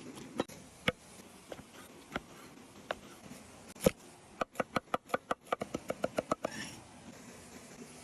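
Knife chopping on a wooden cutting board: a few scattered knocks, then a quick even run of about a dozen chops at roughly six a second, followed by a short scrape.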